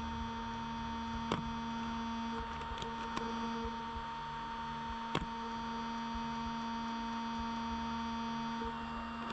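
Steady electrical hum of several fixed pitches over a light hiss, with a few faint sharp clicks about one, three and five seconds in.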